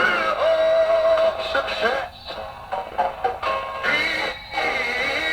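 Music with a singing voice playing from a station on the restored 1954 General Electric C407 tube radio's speaker.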